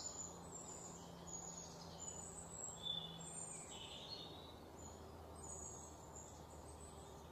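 Faint background birdsong: short, scattered high chirps every second or so over a low steady hum.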